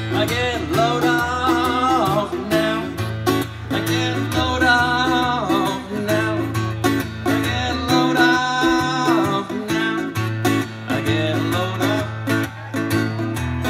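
Live solo acoustic guitar, strummed steadily, with a man singing into a microphone through a PA. The voice comes in three long, wavering held phrases.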